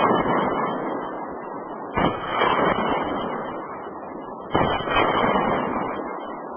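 A 30 mm consumer fireworks cake firing shells: a burst about two seconds in and another about four and a half seconds in, following one just before. Each burst is followed by a long, fading crackle from the glittering star tails.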